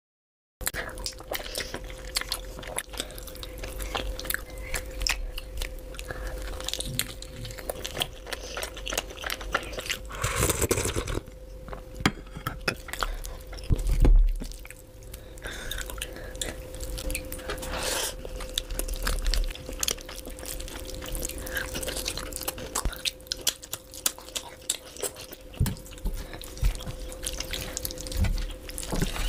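Close-miked eating sounds: wet chewing, biting and lip-smacking on curried mutton and chicken eaten by hand, with meat being pulled off the bone, in many quick clicks and smacks. A faint steady hum runs underneath, and the loudest bursts come about 11 and 14 seconds in.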